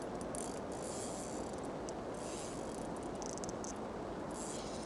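Steady hiss of wind and rippling water, with a short run of fast, fine high ticks a little past three seconds in.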